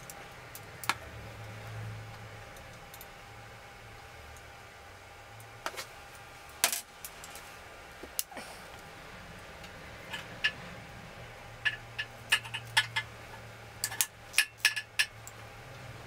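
Small metal clinks and clicks of a hand tool and loose fasteners as the screws of a BMW R100GS timing chain cover are undone: a few separate clinks, then a quick run of them in the last few seconds.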